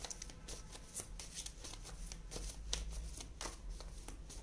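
A tarot deck being shuffled by hand: a run of quick, irregular card clicks and rustles.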